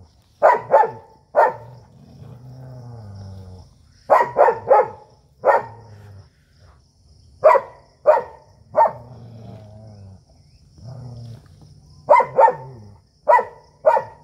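Dog barking sharply in short runs of two to four, with low growling between the runs: a dog squaring up to others in a fight.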